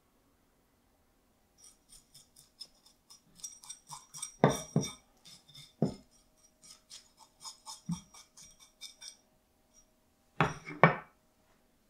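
Kitchen knife blade scraping the scales and slime off a sweetfish (ayu) on a wooden cutting board, in quick repeated strokes with a few louder knocks of the blade against the board. A couple of heavier knocks near the end.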